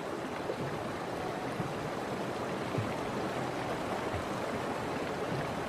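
Fast, cold river water rushing steadily around bison swimming across the current.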